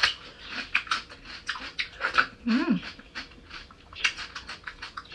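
Crisp crunching and chewing of a raw hybrid cucumber close to the microphone, a run of sharp crackling bites. About two and a half seconds in there is a brief rising-then-falling voiced sound.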